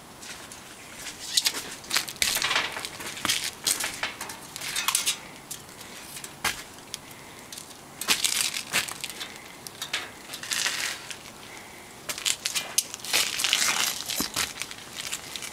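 Irregular bursts of crunching and scuffing, grouped in clusters with quieter gaps between, as shoes scuff and step on the gritty flat-roof surface.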